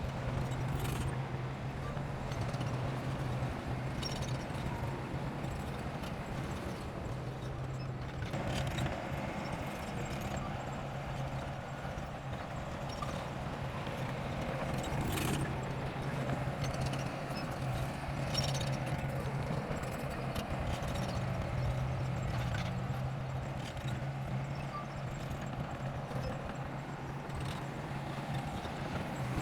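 Bulldozer's diesel engine running steadily at a low, even pitch, with scattered sharp clanks over it.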